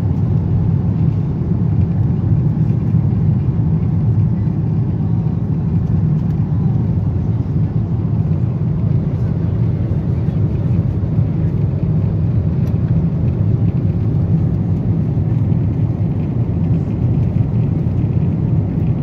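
Steady cabin noise of a Boeing 777-300ER in flight: the deep, even rumble of its GE90 engines and the airflow over the fuselage, heard from an economy seat.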